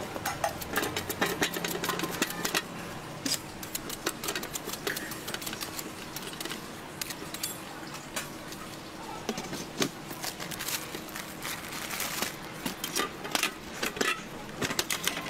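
Irregular sharp taps and clicks of a large kitchen knife cutting through fruit and knocking against stainless-steel trays, with metal utensils clinking over a steady low background hum.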